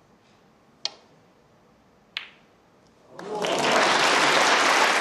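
Two sharp clicks of snooker balls, the cue tip striking the cue ball and then the cue ball hitting an object ball, followed about three seconds in by loud, sustained audience applause.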